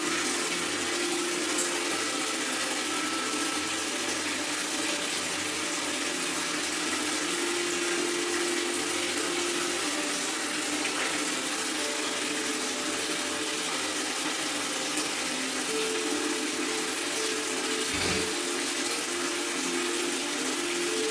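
A steady rushing hiss, like running water, with faint humming tones that come and go and a soft thump near the end.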